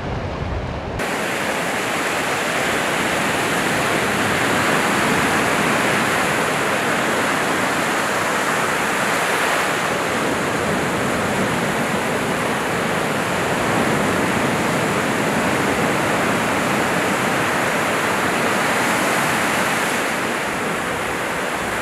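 Surf on a sandy beach: small waves breaking and washing up the shore in a steady rush that swells and eases gently. The sound changes to this about a second in.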